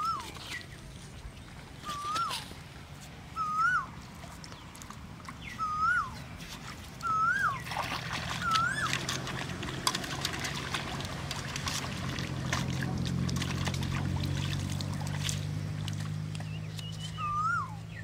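A bird calling over and over, each call a short whistle that rises and then drops sharply, repeated every second or two through the first half and once more near the end. In the middle, water splashing and trickling as hands work in the shallow pond water, over a low steady hum.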